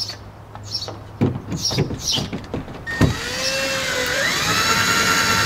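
Cordless drill starting with a click about three seconds in and running as a steady whine, its pitch dipping briefly under load and then recovering.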